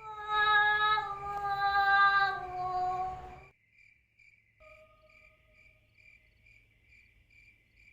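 A long, drawn-out 'woaah' wail, held for about three and a half seconds and sagging lower in pitch at the end, followed a second later by a short faint hum. Crickets chirp steadily throughout.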